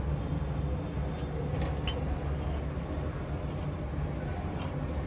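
Steady low rumble of a running engine, with a few faint light clicks from hand work on engine parts.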